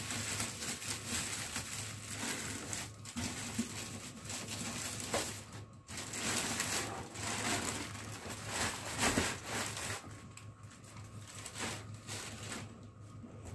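Rustling and crinkling of a parcel's packaging being handled and opened, over a steady low hum. It gets quieter from about ten seconds in.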